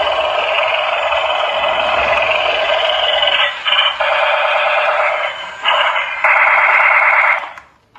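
Electronic sound effects from a battery-powered toy train's tiny speaker, tinny and loud, with two short breaks, cutting off shortly before the end.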